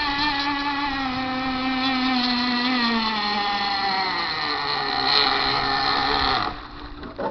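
OS .18 TZ two-stroke glow engine of a radio-controlled boat, running through its tuned pipe with a high, wavering pitch that slowly falls, then cuts off suddenly about six and a half seconds in.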